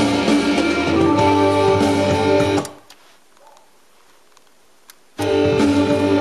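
Music playing back from a cassette on an MCS 683-3595 dual stereo cassette deck. It cuts off about two and a half seconds in, leaving faint tape-deck hiss, then comes back after a click about five seconds in, as the deck is paused and released.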